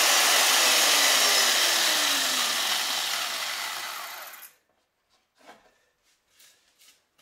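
Old IE-5607 chain mortising machine running with its cutting chain in a wooden bar. Its motor then winds down with a falling hum and stops about four and a half seconds in, leaving a few faint clicks.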